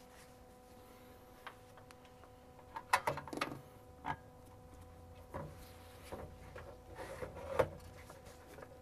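Scattered clicks and light knocks of cable plugs being handled and pushed into the ports of a security-camera NVR box, over a faint steady hum.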